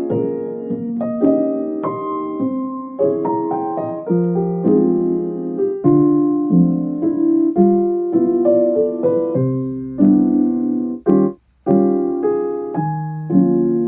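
Background piano music: a gentle melody over changing chords, with a brief break about eleven seconds in.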